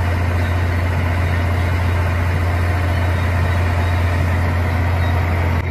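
Harmeet combine harvester's diesel engine running steadily, a loud, even hum with a strong low drone.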